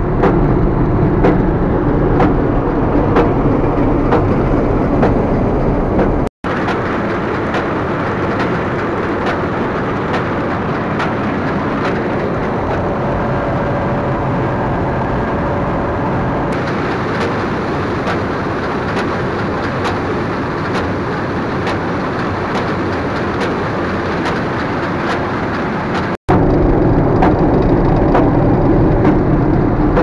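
Fortschritt E-516B combine harvester running under load while harvesting: a loud, steady mechanical din from the engine and threshing machinery, with faint clicks and rattles. The sound changes abruptly at about 6 s and again at about 26 s as the listening point moves between the cab and the grain tank, where grain is pouring in from the filling auger.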